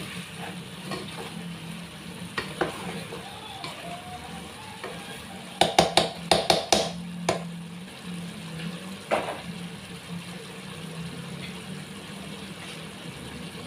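Pork and chicken pieces sizzling as they brown in a pot, stirred and turned with a metal spatula and ladle. About halfway through comes a quick run of about six clanks of the utensils against the pot. A steady low hum runs underneath.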